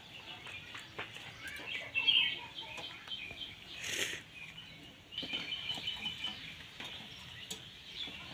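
Birds chirping, with a few light clicks and a brief splash about four seconds in as eggs are lowered by hand into a wok of hot water.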